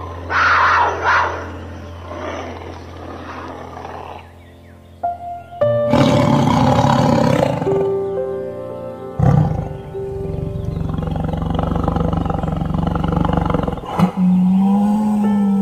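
Big-cat snarls and a tiger roaring and growling over background music: two short snarls near the start, a loud roar about six seconds in, and a long rough growl through most of the second half.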